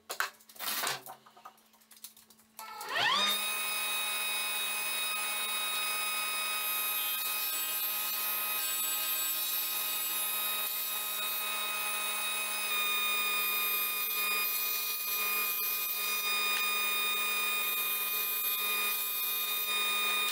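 A few knocks from plywood being handled, then a table saw's motor starting about three seconds in. Its pitch rises quickly, then holds steady while the blade rips through a plywood sheet.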